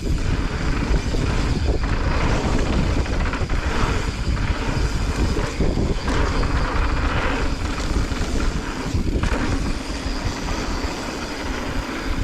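Wind rushing over the microphone and mountain bike tyres rumbling over a dirt trail while riding downhill, a steady noise that swells and eases every second or two.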